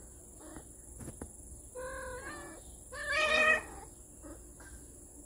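A domestic cat meowing twice, each call under a second long, the second louder than the first.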